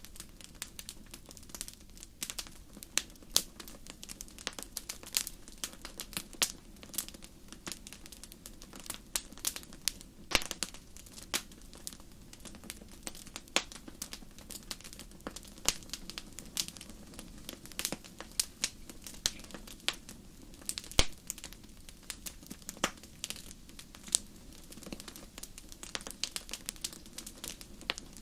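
Wood fire crackling: a steady stream of irregular sharp pops and snaps over a low, even rumble of the flames.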